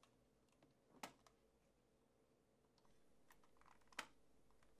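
Near silence with two faint clicks: a power cord's plug handled and then pushed into a plastic power strip, the sharper click near the end as it seats.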